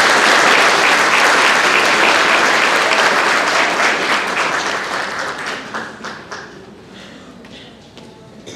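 Audience applauding: loud, dense clapping that dies away over the second half, leaving a few scattered claps near the end.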